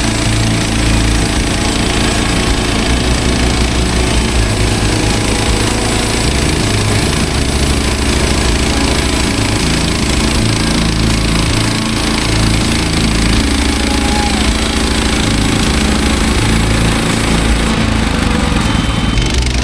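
Woodland Mills HM130 Max bandsaw sawmill's gasoline engine running steadily and loudly.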